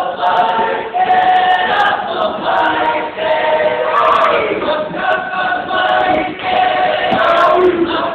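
A group of voices singing a song together without instruments, in long held notes that move from pitch to pitch.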